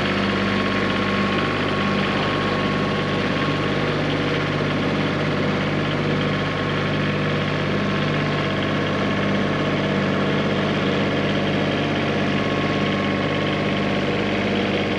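Compact farm tractor's engine running at a steady speed.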